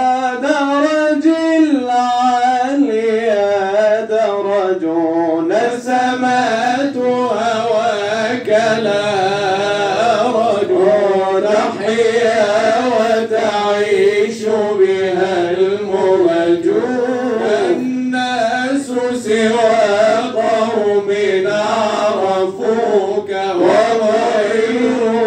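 A man singing Sufi inshad, Arabic religious praise poetry, in long drawn-out lines whose pitch slides and bends up and down, with no instrument heard.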